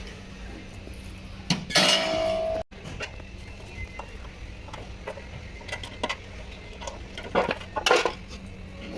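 Metal clinking and clattering, as of tools or metal parts being handled, over a steady low hum. The loudest clatter, with a brief ring, comes about two seconds in and cuts off suddenly; a few more clinks follow near the end.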